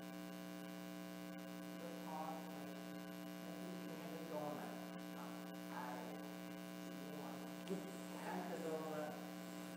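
Steady electrical hum, several even tones held without change, with faint, indistinct speech in the room now and then.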